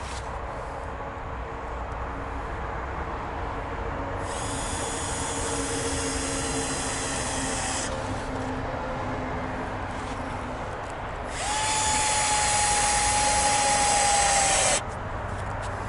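Cordless drill running in two bursts as it works into a rough log brace on a wooden post. The second burst is louder, with a steady whine that sags slightly under load.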